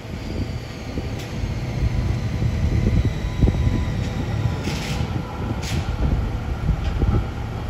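B2-class articulated electric tram pulling away from a stop: a low rumble of motors and wheels on the rails that builds over the first couple of seconds, with a faint electric whine. Two short hisses come about five seconds in.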